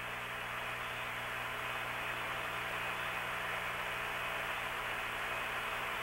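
Steady hiss with a low hum from the open air-to-ground radio voice link, with the hiss cut off sharply above the voice band.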